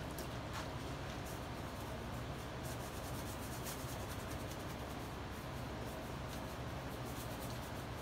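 A paintbrush scrubbing wet plaster onto cloth, soft repeated brushing strokes, over a steady low hum.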